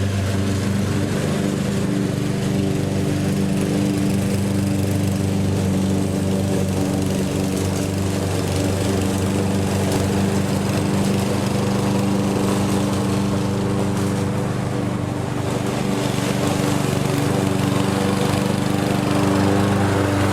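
Lawn mower engine running at a steady speed.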